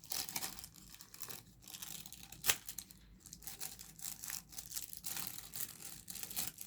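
Crinkly rustling of a bag being handled as small beads are dropped into it, irregular crackles with a sharper click about two and a half seconds in.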